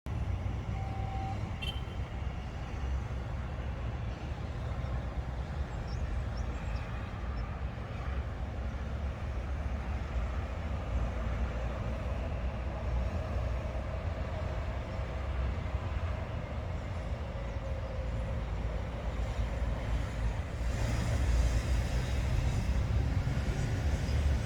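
Wind rumbling and buffeting on the microphone, a steady low rumble that grows louder near the end.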